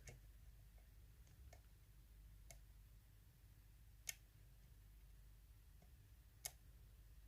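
Faint, sparse metallic clicks of a lock pick working the pins of a Sargent mortise cylinder lock under tension. There are a few scattered clicks, with the clearest about four seconds in and near the end.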